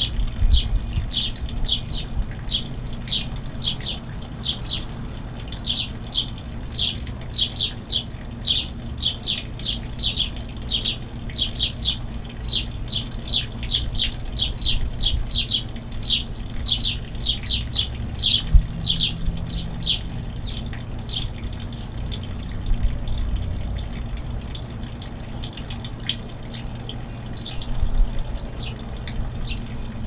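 Finches chirping, a quick, dense run of short high calls that thins out about two-thirds of the way through, over a steady low rushing noise.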